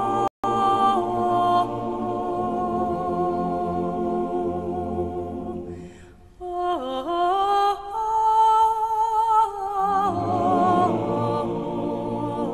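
Unaccompanied voices singing slow, long held notes with vibrato. The sound drops out for an instant just after the start, and the singing breaks off briefly about six seconds in.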